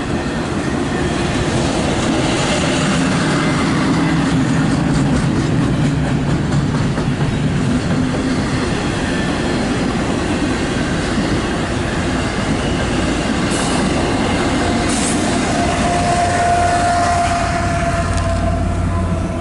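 CSX intermodal freight train's cars rolling past, wheels clattering over the rails with occasional clanks. A steady wheel squeal rises in the last few seconds.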